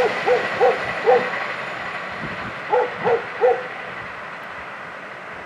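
Two runs of short hooting notes, each one rising and falling in pitch, about a third of a second apart: four at the start, then three about three seconds in. Under them, the rumble of a passing electric train fades away.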